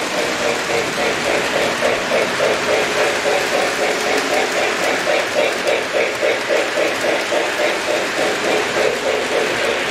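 Electric model trains running on the layout's track: a steady whir of the locomotive motors with a fast, even clicking of wheels over the rail joints, several clicks a second.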